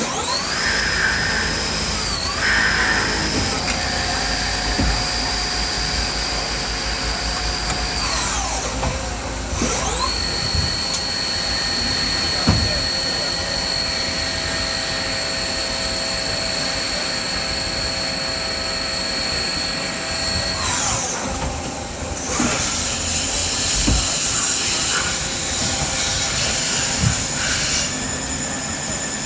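Doosan CNC lathe in a machine shop: a high spindle whine ramps up, holds steady for several seconds, then winds down, and does this twice as parts are cut, over a steady shop rumble.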